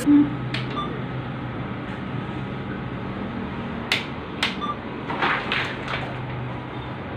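ATM screen-side buttons being pressed: several sharp clicks and a couple of short beeps over a steady low hum.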